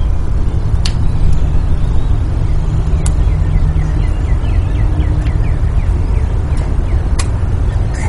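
Wind buffeting the microphone: a loud, low, fluctuating rumble, with three sharp clicks spread through it.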